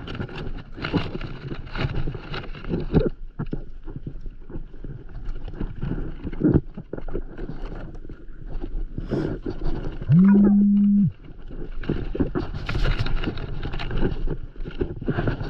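Rope being handled and knotted at close range: irregular rustling and short knocks. Just after the middle, a loud steady low buzzing tone sounds for about a second and stops abruptly.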